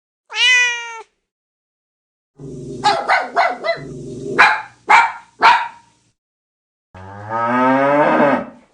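Cartoon dog sound effects: a short high-pitched yelp, then a run of about six barks over a low growl, then a long call rising in pitch.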